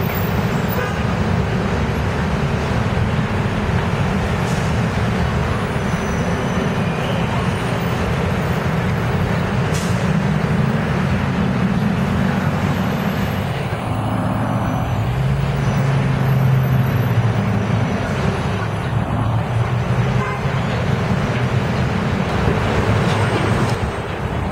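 Diesel city buses and street traffic passing. A low bus engine hum swells and is loudest about two-thirds of the way through as an articulated bus goes by.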